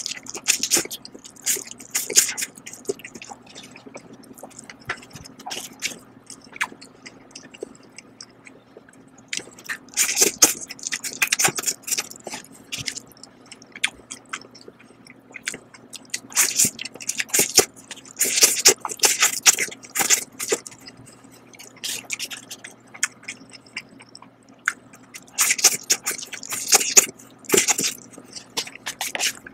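A person slurping instant noodles from chopsticks and chewing them. The slurps come in several bouts, with quieter chewing in between.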